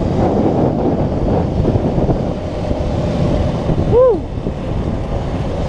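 Wind buffeting the microphone over a motorcycle engine running while riding. About four seconds in comes a brief pitched sound that rises and falls.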